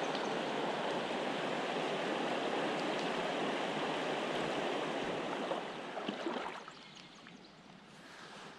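River water flowing hard: a loud, steady rush that drops to a much quieter flow about two-thirds of the way through, with a few light clicks just before the drop.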